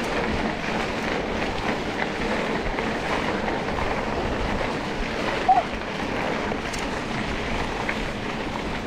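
Steady rushing noise of an off-road vehicle on the move, heard from an onboard camera: wind on the microphone over engine and terrain noise, with a brief short chirp about five and a half seconds in.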